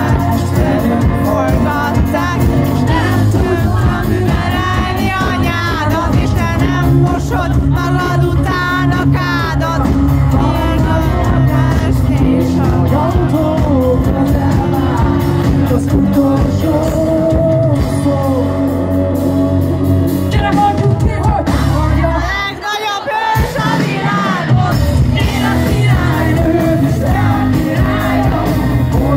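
Live rock band playing with a woman singing lead into a microphone, drums, bass and electric guitars behind her. About two-thirds of the way through, the bass drops out for about a second before the band comes back in.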